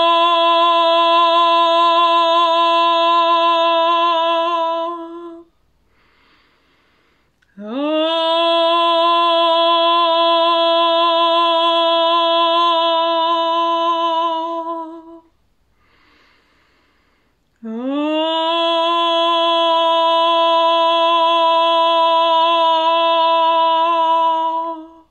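A woman's voice toning in a sound meditation: three long held notes on the same pitch, each about seven seconds long and each starting with a quick upward slide, with short pauses between them.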